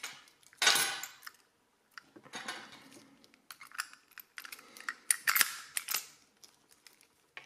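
A slim metal tool scraping and clicking against a brass lock cylinder as a part is worked off it, in a string of short scrapes and clicks. The loudest scrape comes about a second in.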